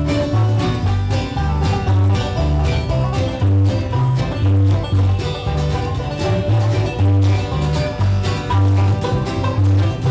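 Bluegrass band playing an instrumental passage: banjo and guitar picking over a steady, pulsing bass line.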